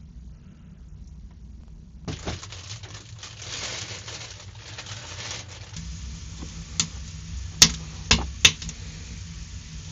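Food sizzling in a hot pan, the sizzle starting about two seconds in, with several sharp clinks of a utensil against the pan in the second half.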